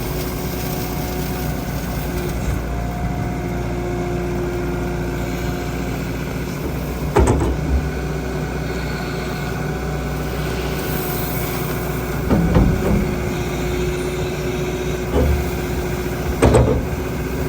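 Skid steer engine running steadily, with several short, loud clunks a few seconds apart.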